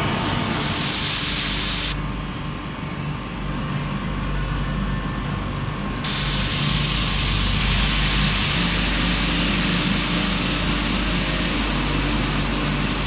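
Powder-coating spray gun hissing with a loud, even rush of compressed air, over a steady low machine hum. The hiss drops away for a few seconds about two seconds in and comes back at full strength about six seconds in.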